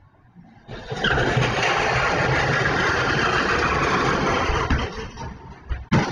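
Pickup truck passing on the road with a loud, rushing noise that starts suddenly about a second in and lasts about four seconds, then fades; a sharp knock near the end.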